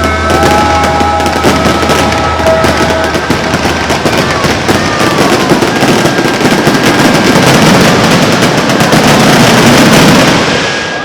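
Fireworks finale: a dense, unbroken barrage of bursts and crackles that builds and then stops about ten seconds in.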